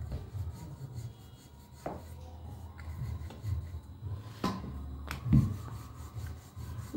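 Wooden rolling pin rolling a small disc of dough back and forth on a floured stone countertop: a low rubbing rumble, with a few sharp knocks, the loudest a little past five seconds in.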